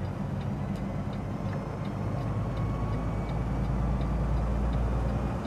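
Steady low engine and road rumble heard from inside a moving vehicle's cab, growing a little louder toward the end, with a light ticking about three times a second.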